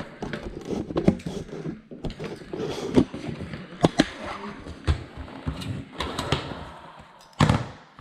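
Irregular knocks, clicks and scraping from hands and tools working flooring material, with a louder scrape near the end.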